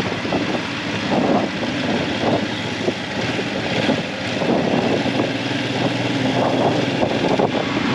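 Motorcycle engine running steadily as the bike rolls slowly in traffic, mixed with wind and road noise.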